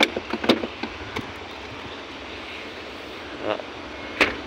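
Sharp clicks and knocks from the Proton Iswara's rear door being handled and fitted: a quick cluster in the first second, a short rasp about three and a half seconds in, and one loud knock near the end. A steady background hum runs underneath.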